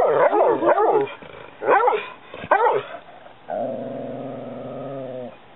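A dog barking and yipping in a quick flurry, then two single barks less than a second apart, then a long, steady low growl lasting nearly two seconds.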